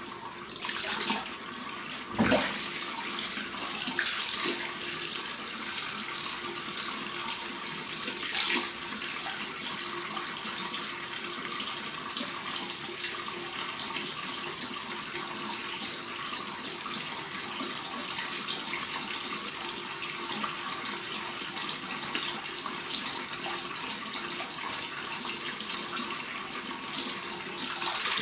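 A tap running steadily into a bathroom sink, with a sharp knock about two seconds in.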